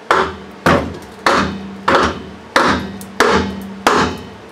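Ball-peen hammer striking a heavy-duty GMC K2500 rear brake drum to knock the stuck drum loose. There are seven evenly spaced blows, about two-thirds of a second apart, and each one rings briefly with a metallic tone.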